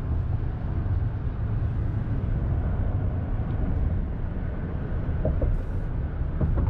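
Steady road and engine noise of a rental truck cruising at highway speed, heard from inside the cab as an even low rumble.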